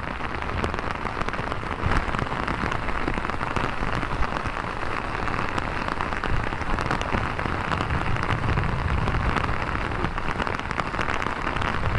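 Heavy rain pouring steadily, a dense patter of close raindrops, mixed with the rush of fast-flowing muddy floodwater.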